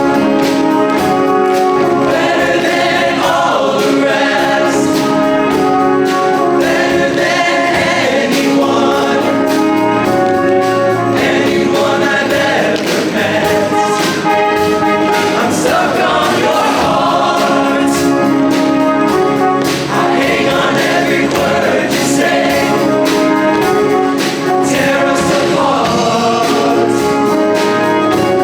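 Show choir singing in full harmony over loud accompaniment with brass and regular drum hits.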